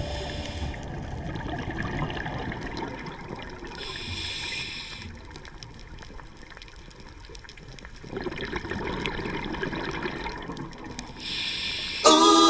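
Underwater ambience heard through a camera's housing: a watery hiss with faint crackling, which brightens briefly about four seconds in and again near the end. Music starts right at the end.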